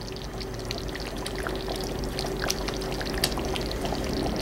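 Thick, cornstarch-thickened beef stew simmering in a pot, bubbling with many small irregular pops and blips over a faint steady hum.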